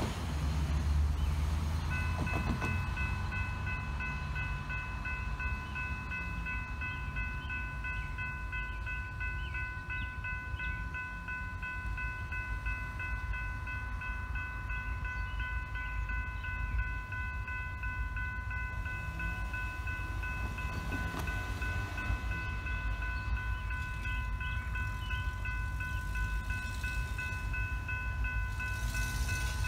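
Electronic railroad crossing bell starts about two seconds in and rings on steadily in rapid, even strokes, warning of an approaching train. A car passes at the start, and a low rumble runs underneath.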